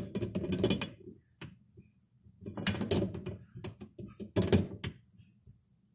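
A flat plastic sink-drain wrench clicking and rattling against the metal locknut of a kitchen sink basket strainer as it is fitted over the nut and turned by hand to tighten it. The sound comes in four or five short clusters of knocks, about a second apart.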